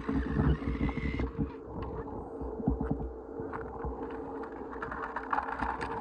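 Small battery-powered toy ride-on motorcycle moving over concrete and rough pavement, its hard plastic wheels clicking and scraping over a steady hum. A brief hiss sounds in the first second.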